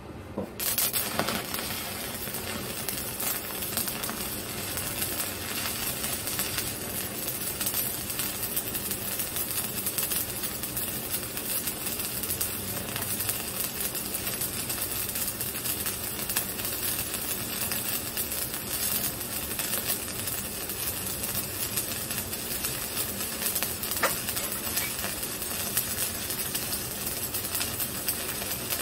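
Stick (shielded metal arc) welding: a 3.2 mm electrode at about 100 amps strikes its arc about half a second in, then burns with a steady crackle as a straight bead is run along thick steel plate.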